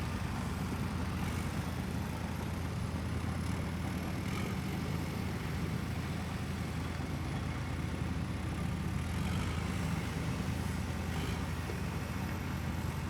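Steady low mechanical hum, like an engine idling, with a faint high-pitched whine that drifts slowly up and down in pitch.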